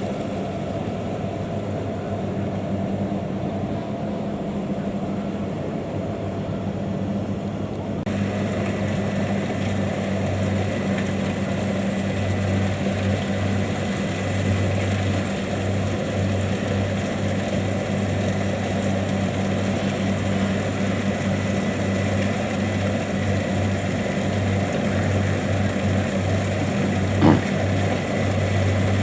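Kubota DC70 Plus combine harvester's diesel engine running steadily under working load while harvesting rice, a continuous low drone that grows louder about eight seconds in. A single short sharp knock sounds near the end.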